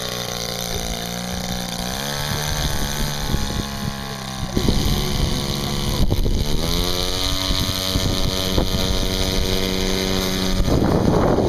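Model Spitfire's engine and propeller running, steady at first, then rising in pitch twice as it is opened up. Wind buffets the microphone near the end.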